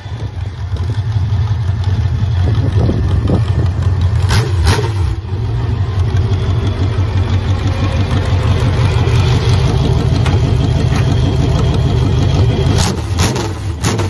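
Carbureted 350 small-block Chevy V8 in a riding lawn mower running steadily through open vertical exhaust stacks as the mower moves slowly. A few sharp cracks come about four seconds in and again near the end.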